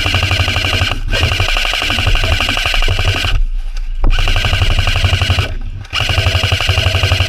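Airsoft electric guns firing long full-auto bursts: a rapid, even rattle over a motor whine, stopping briefly three times.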